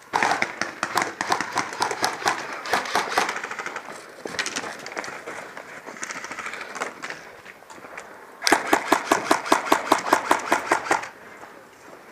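Airsoft gun firing rapid full-auto bursts of sharp, even clicks: a long string at the start, then a louder burst about eight and a half seconds in that lasts around two and a half seconds.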